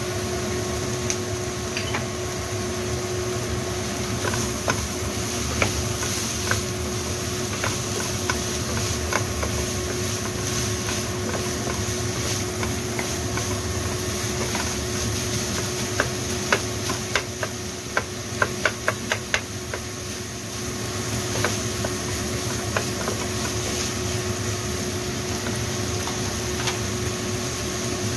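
Wooden spatula stirring minced meat and onions in a frying pan, knocking against the pan now and then, with a quick run of taps about two-thirds of the way through. Underneath runs a steady hiss and a low hum.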